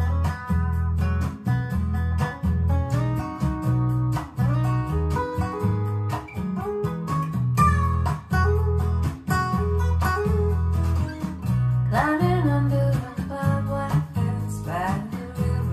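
A song with acoustic guitar, a steady bass line and a woman singing, played back through a pair of RadioShack Optimus STS-1230 loudspeakers with upgraded crossovers. The voice comes in about twelve seconds in and again near the end.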